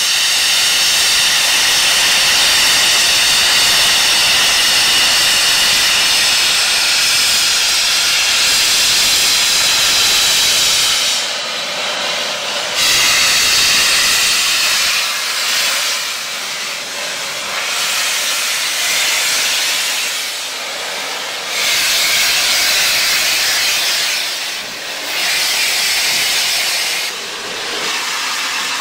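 Steam locomotive venting steam with a loud hiss, continuous for about the first eleven seconds, then breaking into several separate blasts of a couple of seconds each.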